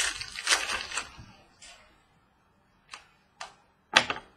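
Football trading cards being flicked through and handled: a rustling flurry of card clicks for about the first second, then three sharp taps, the last and loudest near the end.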